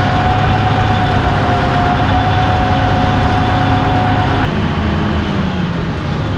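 International 1066 tractor's diesel engine running steadily under load, with a steady whine over it; about four and a half seconds in the whine stops and the engine settles to a lower note.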